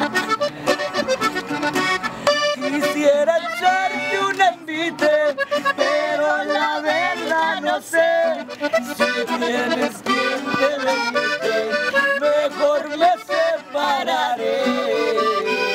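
Instrumental Tejano conjunto music led by a button accordion playing quick melodic runs over a stepping bass line, with no singing.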